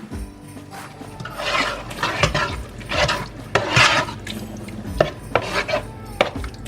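A spoon stirring and scraping in a pot of pasta sauce, in several slow strokes, with light knocks against the pot between them.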